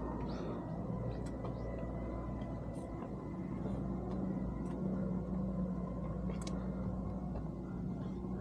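Steady low rumble of a motor vehicle, with an engine hum that grows louder from about halfway through. A few faint, short high chirps sound over it.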